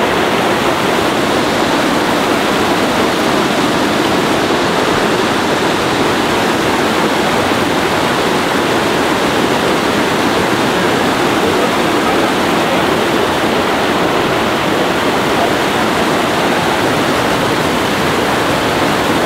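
Whitewater of a fast mountain river rushing over logs and rocks: a steady, loud rush of water.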